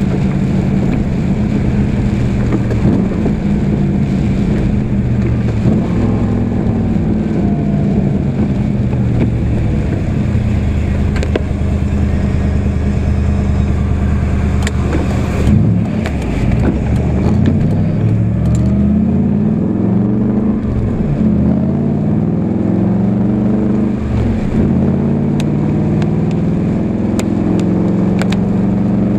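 Toyota Supra's swapped-in 1UZ V8 engine, heard from inside the cabin while driving. It runs at a steady pitch for the first half, dips briefly about halfway through, then rises and drops in pitch several times as the car pulls through the gears.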